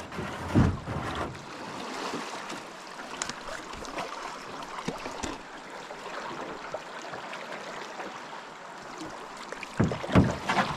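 Steady rush of river water as a canoe runs a rocky bend through fast current, with a few sharp clicks in it and a cluster of louder knocks near the end.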